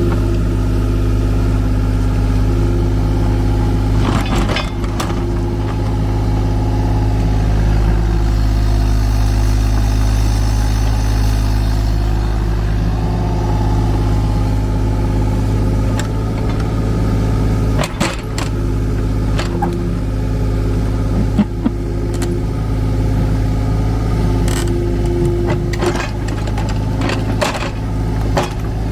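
Kubota U35-4 mini excavator's diesel engine running steadily while digging, with a few short clanks and knocks, at about 4, 18, 21 and 25 seconds in and again near the end.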